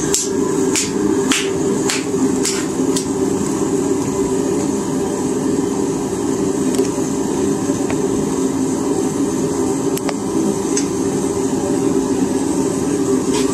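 Propane forge burner running steadily, with a handful of sharp clicks in the first three seconds and a few scattered ones later.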